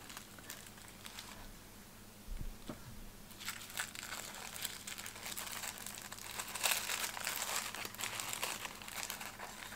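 Tissue paper crinkling and rustling as a small wrapped item is unfolded by hand. Quiet at first, with a soft low bump about two seconds in; the crinkling builds from about three and a half seconds in.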